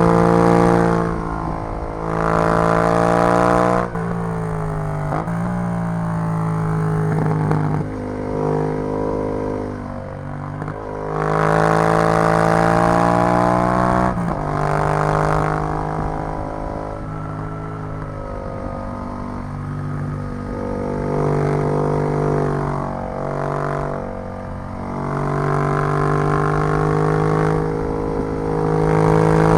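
Yamaha MT-07 parallel-twin engine running through an Arrow full exhaust system, its revs rising and falling several times as it pulls and eases off.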